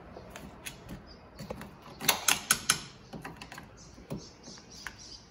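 Sharp metallic clicks and taps of a hand tool working a corroded car-battery terminal clamp loose, with a quick run of four louder clicks about two seconds in.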